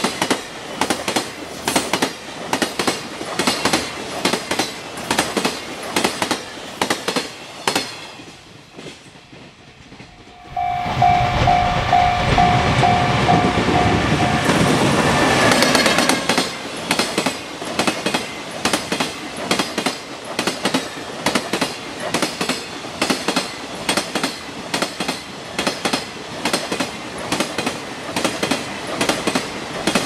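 Freight wagons passing over jointed rail, their wheels giving a rhythmic clickety-clack at every rail joint; the clatter fades away partway through. A louder rush follows as an electric locomotive comes through at speed, with a steady tone pulsing over it for a few seconds, and then the even clatter of container wagons over the joints resumes.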